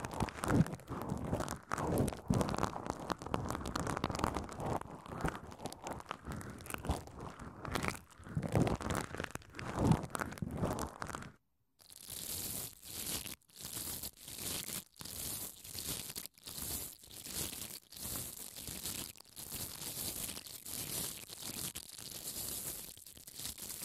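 Bubble wrap crinkled and rubbed right up against a pair of microphones, crackling up close. A little under halfway through it cuts to a spoolie brush scraping in and out of blue foam: a bright, hissy scratching in quick repeated strokes, about one and a half a second.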